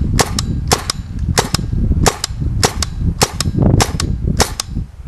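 RAP4 T68 compressed-air paintball gun fired in a steady string of eight shots, about one every 0.6 seconds. Each shot is a sharp double crack, over a low rumble.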